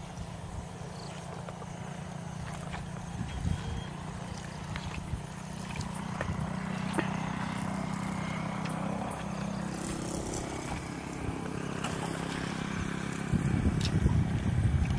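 A steady low motor drone runs throughout, with a few faint knocks. About thirteen seconds in, a louder rough churning starts as a long-handled hoe is dragged through mud and shallow water.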